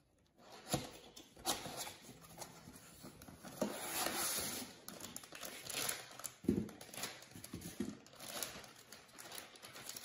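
Packaging being handled: a cardboard box opened, foam packing pieces lifted out and a plastic bag crinkling, in irregular rustles with a few soft knocks.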